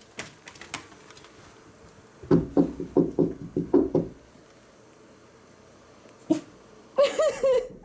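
Knuckles knocking on a wooden surface, a quick run of about eight knocks lasting under two seconds, a couple of seconds in.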